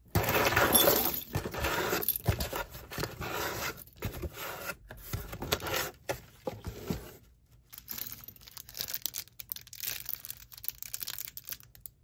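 The last of a box of mixed costume jewelry dumped out of a cardboard box onto a pile, loudest right at the start, then jewelry clinking and small plastic bags crinkling as hands sort through the pile, softer after about seven seconds.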